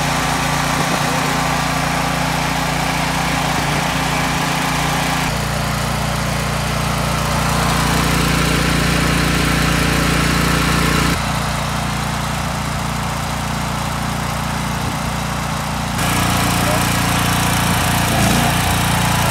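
Blackstone 8.5 kW portable generator's engine running steadily at constant speed. Its level and tone jump abruptly a few times.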